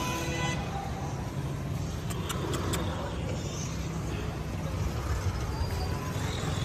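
Steady low rumble of road traffic, with a few sharp clicks about two seconds in.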